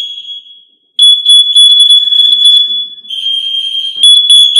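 FireAngel Wi-Safe 2 interlinked alarms sounding a loud, piercing high-pitched tone together, set off by test carbon monoxide gas in the CO alarm's sensor. The tone cuts out for about half a second near the start and then resumes, and for about a second near the end a slightly lower tone takes over.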